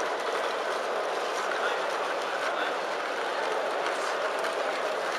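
Steady background din of a large, crowded hall, with indistinct voices blending into an even hum and a few faint clicks.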